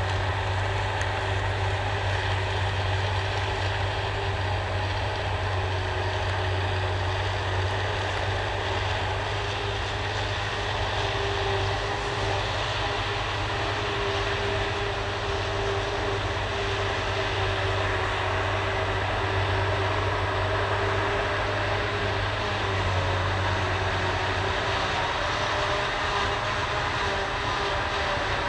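Silage harvesting machinery, a forage harvester and tractor, running steadily under load while chopped grass is blown into a trailer: a continuous engine drone with a steady low hum and a wide rushing noise.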